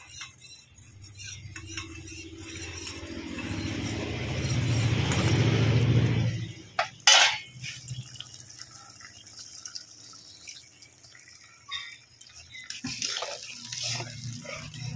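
Cornflour slurry poured into hot sauce in a metal wok: a liquid hiss that swells over a few seconds and stops abruptly about six seconds in. Then a metal spatula stirs, scraping and knocking against the wok.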